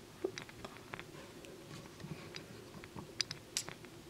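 Faint, irregular small clicks and taps of handling, a dozen or so scattered over a low steady room hum.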